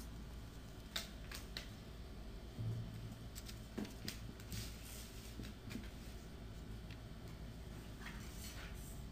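Paper and craft supplies being handled on a tabletop: scattered light taps and rustles, a few sharper clicks, over a low steady hum.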